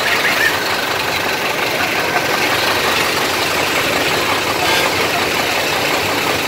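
Heavy truck engine idling steadily close by.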